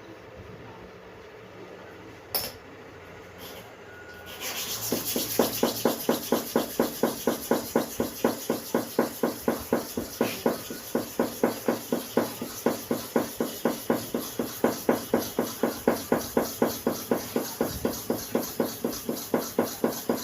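Hair clipper blade rubbed back and forth on a sharpening stone: a steady scraping rhythm of about three strokes a second that starts about four seconds in, after a single click.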